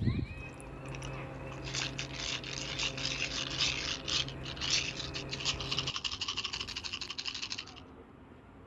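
A dry, fast scratching rattle lasting about six seconds, over a low steady hum that stops about six seconds in.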